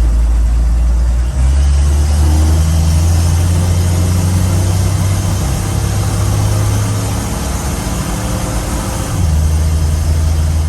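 1975 AM General DJ5-D Postal Jeep's engine running loud and steady while the Jeep is driven. The engine note changes abruptly about a second in and again near the end. The Jeep is running without the strange noise it had been making.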